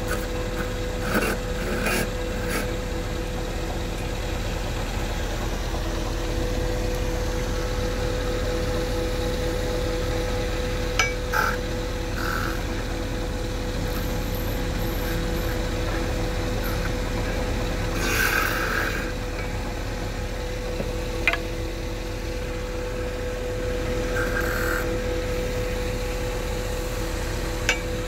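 Wood lathe running with a steady motor hum, with short rubbing and scraping sounds of work against the spinning wood every few seconds and a few sharp clicks.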